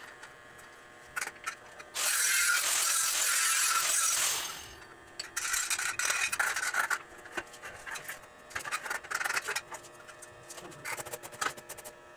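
Electric arc welding on steel tubing: the arc crackles and hisses steadily for about two and a half seconds, starting about two seconds in, then cuts off. It is followed by a spell of irregular short crackles and clicks.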